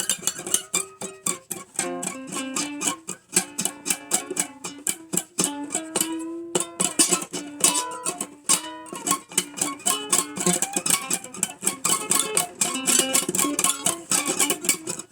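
An acoustic plucked string instrument playing an old-time blues tune, with fast picked notes and strums and a briefly held note about six seconds in.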